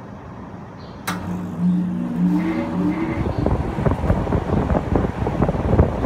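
Saijo Denki air conditioner outdoor unit switching on: a click about a second in, then a hum that rises in pitch as the unit comes up to speed. From about three seconds in the fan's airflow buffets the microphone with loud, fluttering wind noise.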